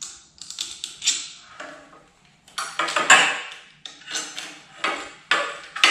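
Metal hardware and steel handle parts clinking and rattling as they are handled: an irregular series of clatters, loudest about three seconds in, from a lawn edger's handle being bolted together by hand.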